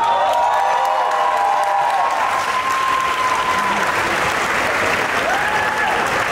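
Large crowd applauding, a dense steady clapping, with a few long high held cheers over it in the first few seconds and again briefly near the end.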